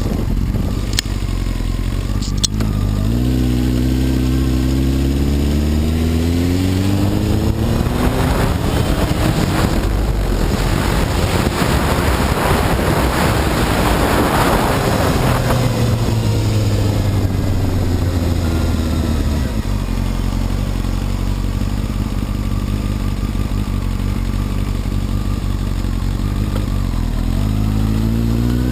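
Honda CBR954RR's inline-four engine pulling away with its note rising, then a rush of wind noise at speed for several seconds before the note falls as the bike slows and settles into a steady low run; near the end it rises again as it accelerates. Two sharp clicks come in the first few seconds.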